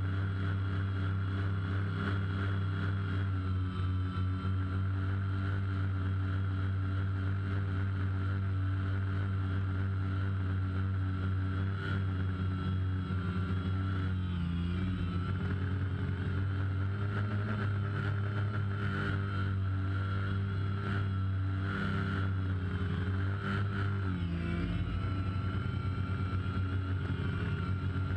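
DJI Phantom quadcopter's motors and propellers running with a steady buzzing hum, heard through the GoPro mounted on the drone. The pitch wavers briefly about halfway through and again near the end.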